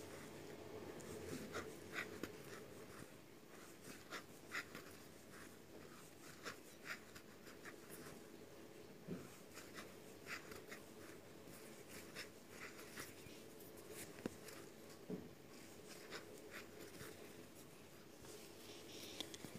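Faint, irregular little scratches and ticks of a crochet hook catching and drawing yarn through stitches, about one or two a second.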